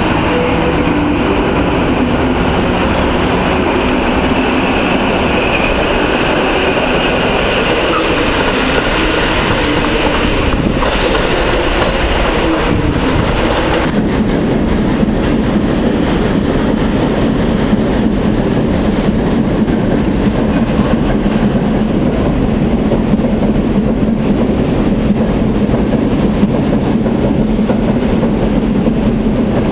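An electric multiple unit rolls past with a few steady tones over its rail noise. After an abrupt cut about halfway, a long freight train of open wagons rolls by close by, its wheels clacking steadily over the rail joints.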